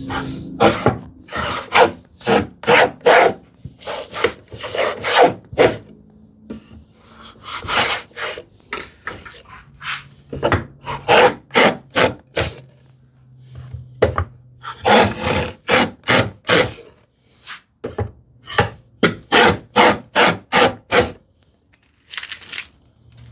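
Stanley 45 combination plane plowing a groove along a wooden drawer side: a rapid series of short cutting strokes, about two a second, in runs with brief pauses, as it cuts the drawer-bottom groove toward a quarter-inch depth.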